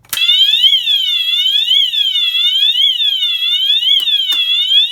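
Wheelock MT multi-tone fire alarm horn strobe sounding loudly. Its electronic tone sweeps up and down in pitch about twice a second, a setting the owner guesses may be the British (UK) tone.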